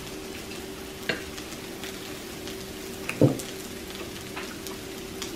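Food sizzling on a Lao tabletop barbecue grill, a steady frying hiss with a few light clicks and one short, louder sound just past three seconds in.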